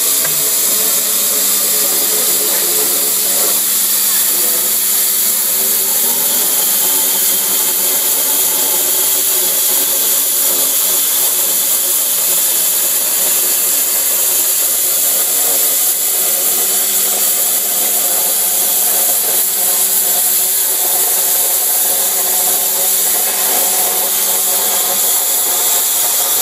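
Cutting torch of a CNC pipe cutting machine cutting through a steel pipe: a loud, steady hiss, with a steady hum and several lower steady tones underneath.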